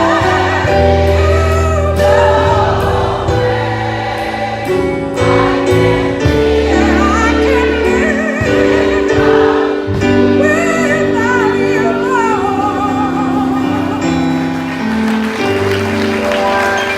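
Choir singing a gospel song: several voices hold long chords with a wavering melody on top, over a low bass line.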